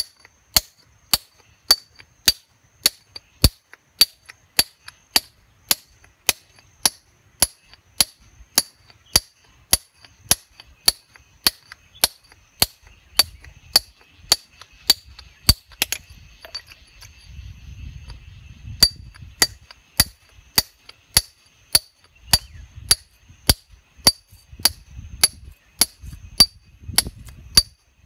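Hand hammer striking a steel point chisel held against a stone slab: sharp metallic clinks with a short ring, at a steady pace of about two strikes a second. The strikes stop for about three seconds just past the middle, then resume at the same pace.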